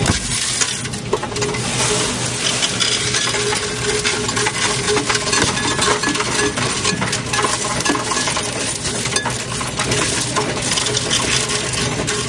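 Loose coins clattering and clinking on a perforated stainless-steel tray as a hand pushes them into a Coinstar coin-counting kiosk, which takes them in one by one. A dense, continuous patter of small metallic clicks.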